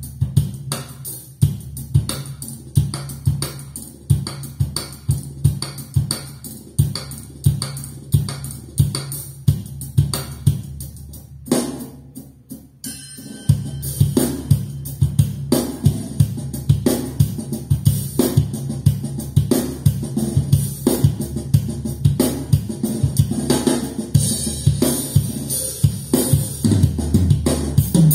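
A recorded drum kit played back through a pair of Infinity Kappa 7 loudspeakers as a drum test: heavy kick and tom hits at about one and a half a second. About halfway through there is a short lull, then the playing turns busier and louder with more cymbals.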